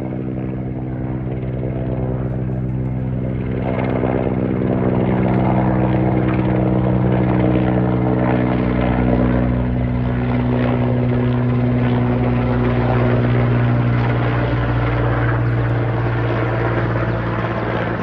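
Helicopter flying overhead: a steady rotor beat with a droning engine whine, growing louder about four seconds in as it comes closer.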